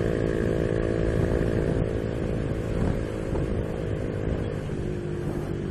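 Honda Biz 125's single-cylinder four-stroke engine running steadily under throttle while riding, with a low rumble of wind and road under it; the engine note drops slightly near the end.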